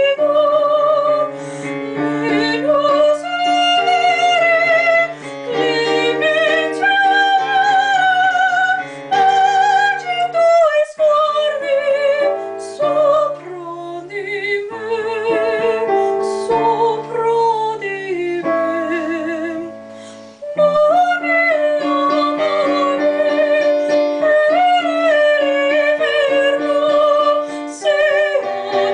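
A woman singing a classical song in trained operatic style with wide vibrato, over piano accompaniment. The music thins and softens a little before twenty seconds in, then comes back loud.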